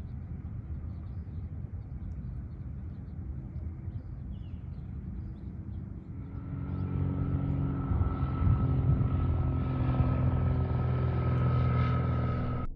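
A steady low engine drone that grows louder from about halfway through, with a steady hum running in it.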